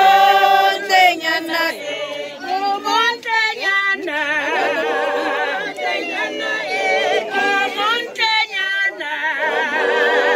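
A group of voices singing together unaccompanied, with no instruments. A high voice with a fast-wavering, trilling pitch, like ululation, rides over the song from about four seconds in and again near the end.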